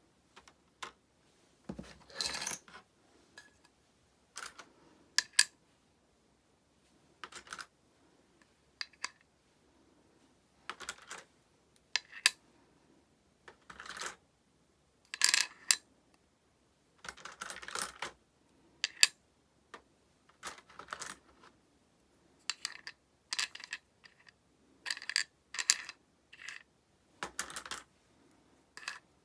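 Small hard plastic toy pieces clicking and clattering against one another and their case as they are handled, in irregular short bursts with gaps of about a second.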